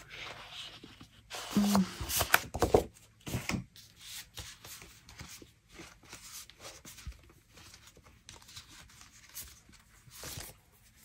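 Sheets of scrapbook paper rustling and sliding against each other as they are flipped through and restacked, with a cluster of loud rustles about two to four seconds in and another near the end.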